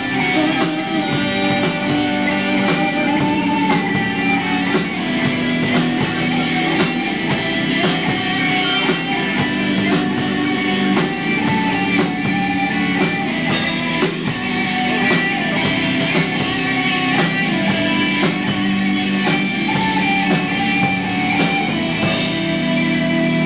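Live rock band playing: electric guitars through small amplifiers over a drum kit, a continuous loud song.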